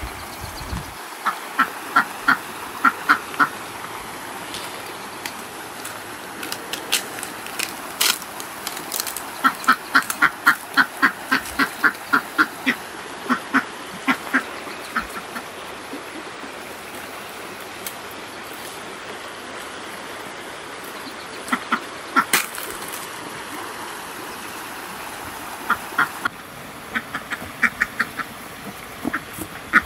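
A duck quacking in quick runs of short calls, several bouts with pauses between, over the steady rush of a creek.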